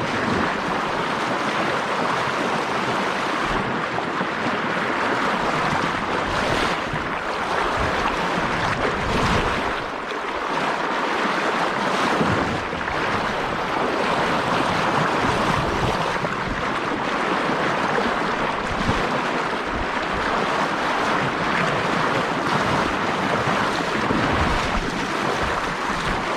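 Fast, high river current rushing steadily close to the microphone, with wind buffeting the microphone in low gusts.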